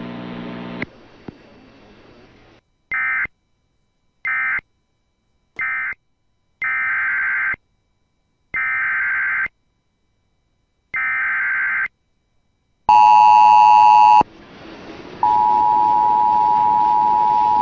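Emergency Alert System signalling: three short SAME data bursts, the end-of-message code closing a severe thunderstorm warning, then three longer data bursts about a second each, the header of the next alert. About 13 seconds in comes the two-tone attention signal, a loud blast of a second or so, then after a short pause a steady held two-tone alert.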